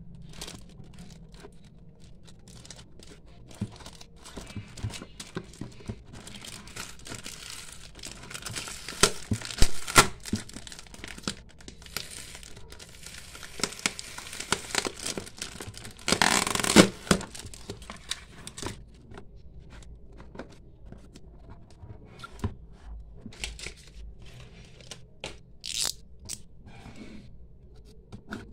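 Plastic courier packaging crinkling and being torn open by hand, with many short rustles and clicks and a loud, longer tear about sixteen seconds in. Near the end come light scrapes and ticks as packing tape on the parcel is slit with a small blade.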